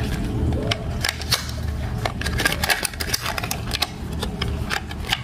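Clear plastic blister pack crackling and clicking as it is handled and pried open: a quick, irregular run of sharp crinkles.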